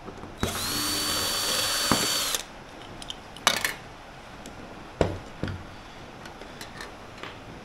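A handheld power tool runs in one burst of about two seconds, its whine rising quickly, holding steady, then dropping away as it is released. A few sharp knocks and clicks follow.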